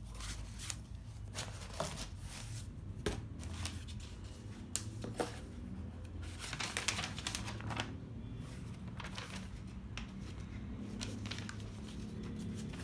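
Kit parts and their packaging being handled: scattered clicks, taps and rustles over a steady low hum.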